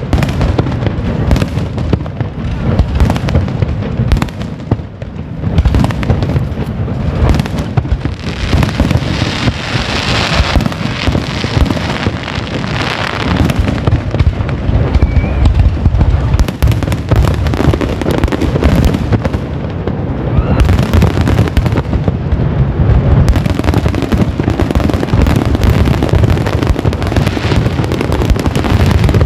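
Fireworks display: aerial shells bursting in a dense, continuous run of bangs, with a stretch of crackling hiss about a third of the way in.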